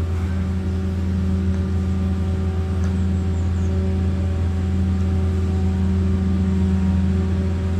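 A machine running steadily, a constant low hum at unchanging pitch with an engine-like drone.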